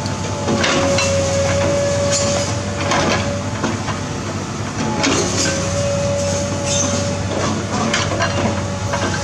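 Komatsu PC210 excavator's diesel engine running under load. A steady whine comes in twice as the arm forces its hydraulic breaker into a concrete slab, and irregular knocks and crunches of breaking concrete and rubble come about once a second.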